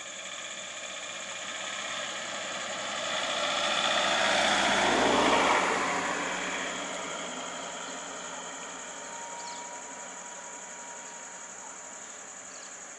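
A road vehicle driving past, its engine and tyre noise swelling to a peak about five seconds in and then fading away.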